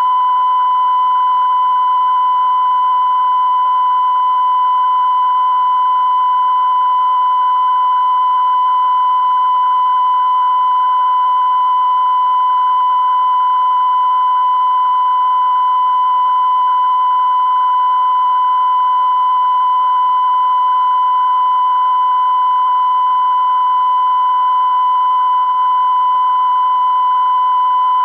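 Television test-card tone: a single steady, unbroken high-pitched beep broadcast with the UEIT test card after sign-off, over a light hiss.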